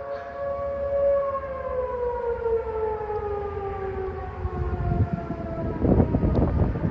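Outdoor warning sirens, T-128s among them, sound together on a test. They hold a steady tone, then wind down in pitch over a few seconds and fade out as they shut off. A low rumbling noise swells up near the end.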